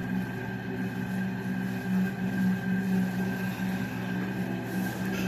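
Steady droning background music of long held tones, with a low note pulsing gently under higher sustained tones.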